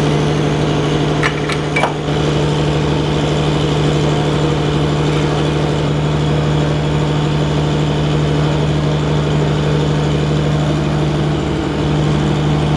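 An engine idling steadily, with a couple of light clicks about a second and a half in.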